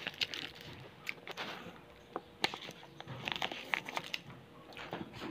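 Plastic bag of sesame seeds crinkling and rustling as a hand rummages in it, heard as scattered light clicks and crackles.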